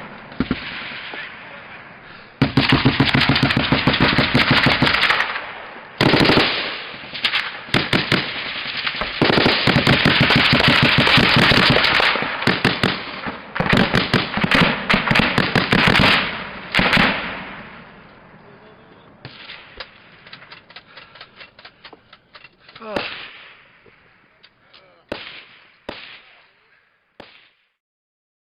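Automatic gunfire in a firefight: long stretches of rapid shots over the first two-thirds, then thinning to scattered single shots before it cuts off near the end.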